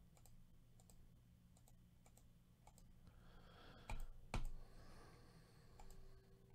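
Faint clicking of a computer mouse and keyboard as text on screen is selected and scrolled: scattered single clicks, with two louder knocks close together about four seconds in, over a faint low hum.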